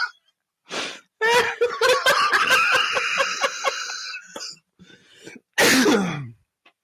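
A person laughing hard and wheezing: a rapid, pulsing laugh lasting a few seconds, then a loud gasping burst that falls in pitch near the end.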